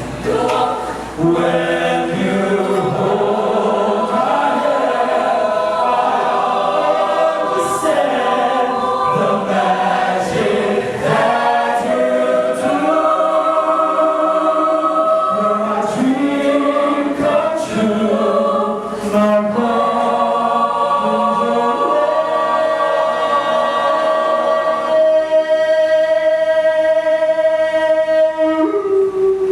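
Choir singing in harmony, moving through a series of chords and holding one long chord near the end.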